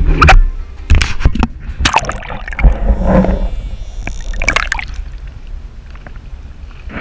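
Water sloshing and gurgling around a camera dipped in and out of the sea. About halfway through come a bottlenose dolphin's underwater clicks and whistles.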